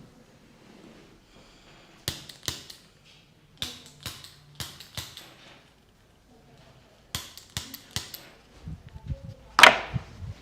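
Joints cracking under a chiropractor's manual adjustments: a series of sharp cracks and clicks in small groups, with one loudest crack near the end.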